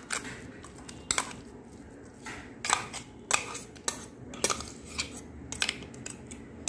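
A steel spoon scraping and clinking against the inside of a stainless-steel mixer jar while minced chicken is scooped out, with about ten sharp, irregular clinks.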